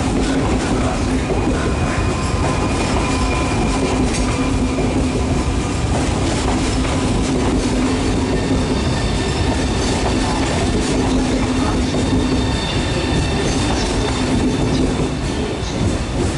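Frecciarossa high-speed electric trainset moving slowly along the platform track: continuous rolling noise with a steady low electric hum and thin higher whining tones, the hum fading about three-quarters of the way through as the rear cab draws away.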